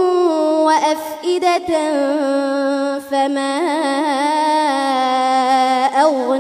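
A young woman's solo voice reciting the Quran in melodic tajweed style, singing the word 'wa-af'idah' and drawing it out into a long, wavering, ornamented note, with a brief break about three seconds in.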